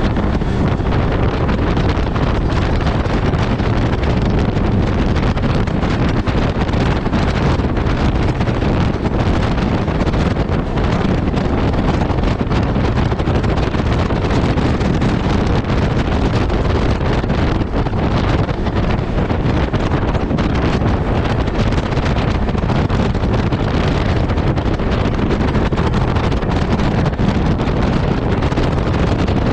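Wind buffeting the microphone of a moving Polaris RZR side-by-side, over the steady noise of the vehicle running off-road.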